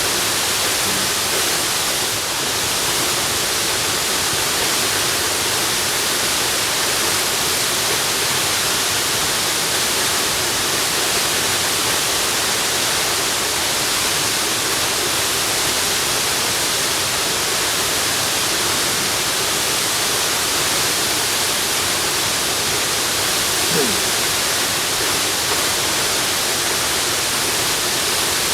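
Waterfall: a steady, loud rush of falling water with no change in level.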